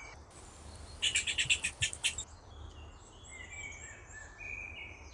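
Birds chirping: a quick run of sharp chirps about a second in, then softer twittering birdsong.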